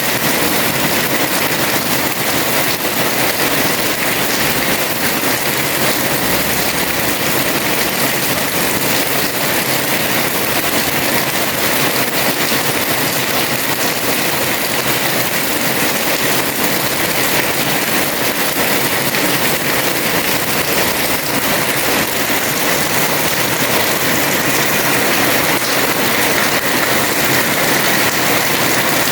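Heavy rain falling steadily on a house terrace, a dense unbroken hiss without pauses.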